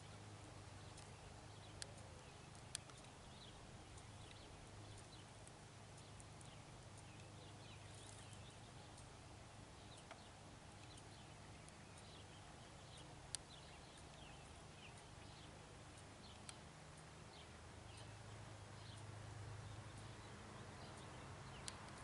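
Near silence: faint outdoor ambience with a low steady hum, scattered faint high chirps and ticks, and a few sharp clicks.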